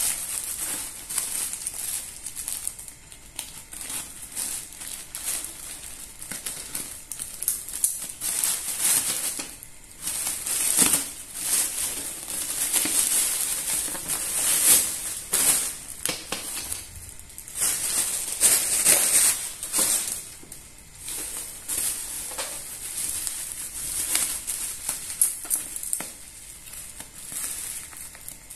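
A plastic mailer bag and bubble wrap crinkling and rustling irregularly as they are handled and cut open.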